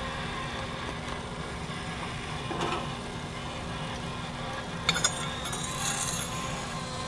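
Steady running noise of a Blackstone propane pizza oven, its burner and the motor that turns the stone. About five seconds in come a couple of sharp clicks as a metal pizza peel comes up to the stone.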